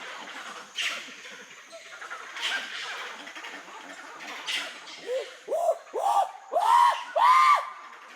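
Three brief sharp noises at intervals, then a run of five monkey-like distress cries. Each cry rises and falls in pitch, and each is higher and louder than the last.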